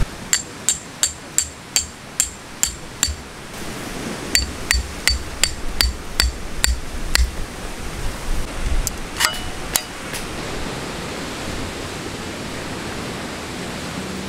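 Tent pegs being hammered in with a peg hammer: two steady runs of about nine sharp, ringing strikes, roughly three a second. A few lighter clicks follow after a pause, then only a faint steady hiss.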